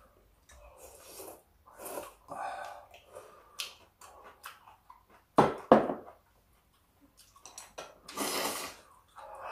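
Close-up mealtime sounds: chewing and dishes or utensils knocking, with two sharp knocks about halfway through and a longer breathy rush near the end.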